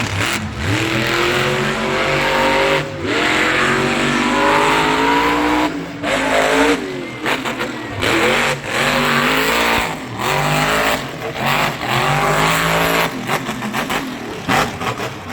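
Monster truck engine revving hard in repeated surges, its pitch climbing and falling several times, with the sound cutting out briefly between surges.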